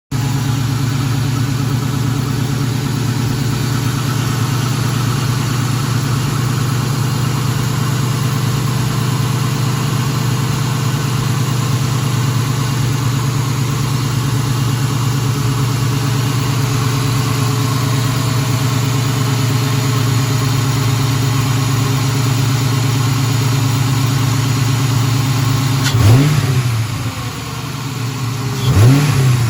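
2001 Mustang GT's 4.6-litre V8 idling steadily on a freshly fitted 70mm BBK throttle body and Trick Flow plenum. Near the end the throttle is blipped twice, two quick revs that rise and fall back to idle.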